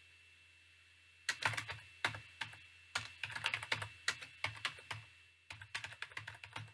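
Computer keyboard typing: runs of quick key clicks, starting a little over a second in and going on in short bursts with brief pauses.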